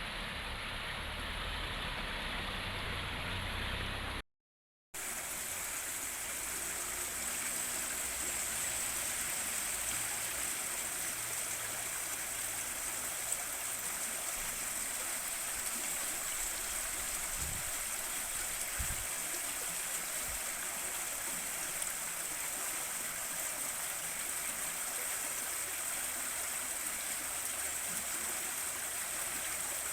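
River water flowing in a steady rush. About four seconds in the sound cuts out for under a second, then resumes with a brighter hiss.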